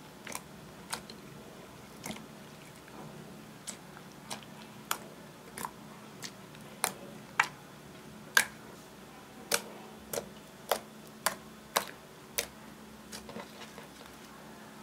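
Fingers poking and pressing glittery clear slime, making a string of sharp, irregular wet clicks and pops, about twenty in all, loudest and closest together around the middle.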